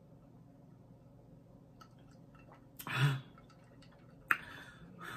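Person drinking water through a plastic straw from a glass jar: faint sipping, then a short loud breathy sound about three seconds in as the drink ends, and a single sharp click a little after four seconds.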